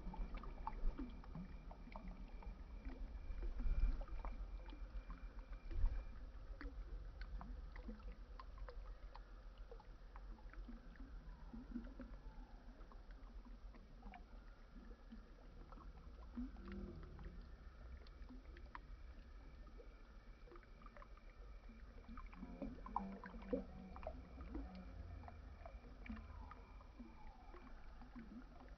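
Water moving gently: a steady low rumble with many small scattered splashes and drips.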